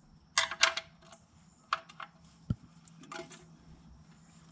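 A wrench on an oil pan drain plug being tightened: a few scattered sharp metallic clicks and a duller knock about halfway through.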